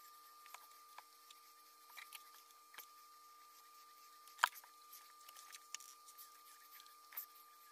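Faint scattered light clicks and taps of hands handling craft supplies over a steady high hum, with one sharper click about halfway through.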